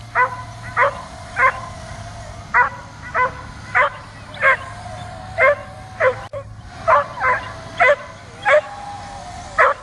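A dog barks repeatedly at a drone flying overhead: about fourteen sharp barks, one every half second to a second. A faint steady whine from the drone's propellers runs underneath.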